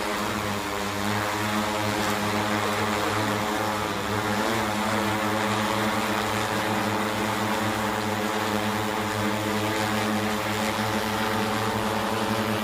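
Multirotor agricultural spraying drone's propellers running at a steady hover or cruise: a constant droning hum made of several steady tones, with a slight waver in pitch.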